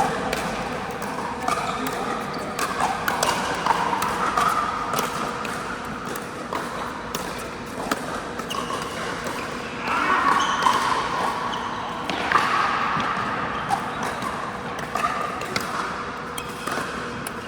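Pickleball play on an indoor court: paddles popping against the plastic ball and the ball bouncing, sharp irregular clicks over the hum and echo of a large hall.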